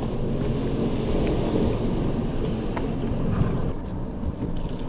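Boat engine running steadily, a low rumble, kept on to hold the boat in place because it has no spot lock.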